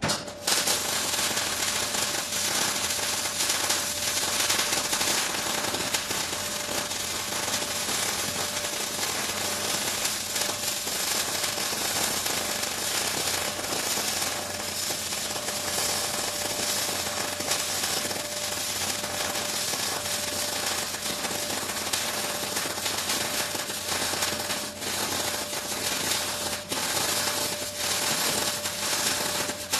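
Power tool running continuously with a rapid rattle and a steady whine, cutting in suddenly.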